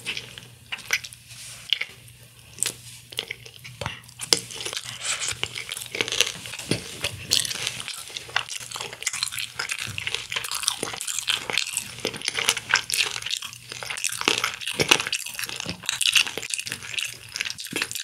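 Close-miked mouth sounds of a person chewing crispy honey-glazed fried chicken: a steady run of small crackles and wet clicks.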